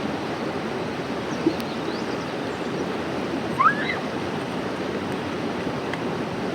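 River water rushing steadily, with one short high rising call, a voice or bird, about three and a half seconds in.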